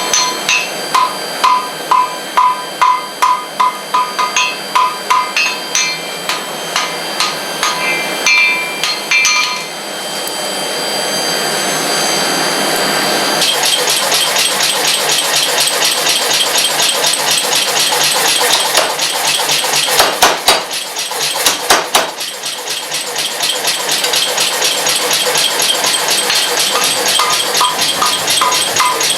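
Hammer blows on an anvil, ringing metallically at about three strikes a second, as wrought iron is forge-welded. The hammering stops about ten seconds in, giving way to a steady rushing noise with a few heavy blows about twenty seconds in, and ringing hammer strikes return near the end.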